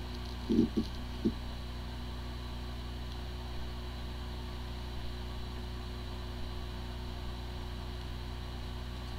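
Hard drive spinning with a steady hum and a few soft low knocks in the first second or so. It sounds like a normal, healthy drive even though its disk firmware is corrupted and no computer can detect it.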